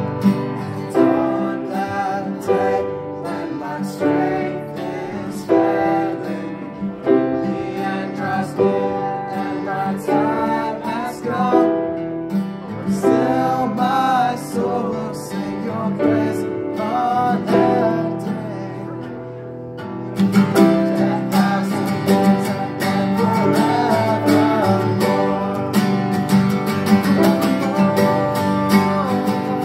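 Live acoustic performance: two acoustic guitars strummed along with a grand piano, and male voices singing. About twenty seconds in, the strumming grows louder and fuller.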